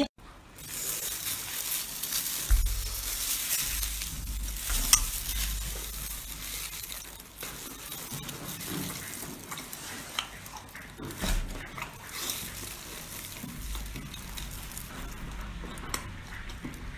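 Close-miked eating sounds: a large sauced, skewered seafood piece is pulled apart by plastic-gloved hands, chewed and bitten, with a steady wet crackle and scattered small clicks.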